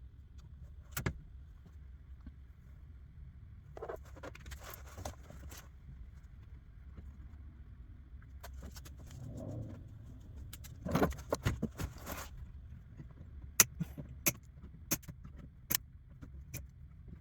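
Handling noise of parts and tools: scattered sharp clicks and knocks, with two short stretches of rattling, about four seconds in and again about eleven seconds in, over a low steady hum.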